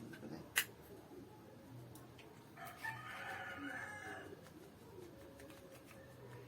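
A rooster crowing once, a single call of about a second and a half starting about two and a half seconds in. A sharp click comes shortly before it.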